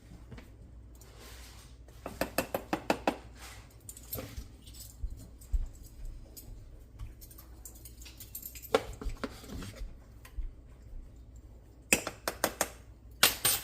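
Spoon clinking and scraping against a saucepan while stirring strawberry topping, in quick runs of taps about two seconds in and again near the end, with a few single knocks between.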